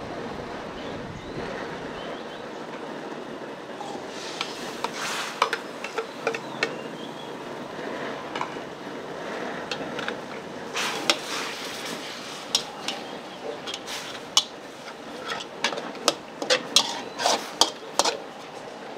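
Metal kitchen utensils clinking and scraping against cookware or dishes, the sharp clatters coming quickly in the second half, over a steady background rush.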